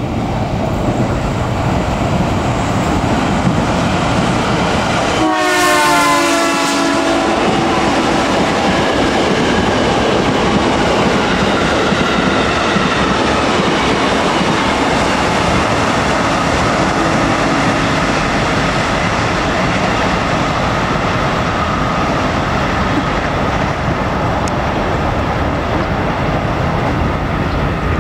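Electric commuter trains running past, with steady wheel-and-rail noise and some clickety-clack. About five seconds in, a train horn sounds a chord for about a second and a half, falling slightly in pitch as it passes. A fainter, shorter horn note follows about sixteen seconds in.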